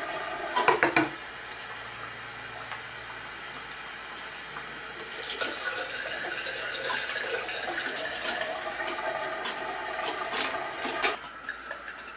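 Tap water running into a sink and into a stainless steel film developing tank as the tank is rinsed, with a few sharp knocks of the tank being handled about half a second in. The water sound grows a little louder midway and drops near the end.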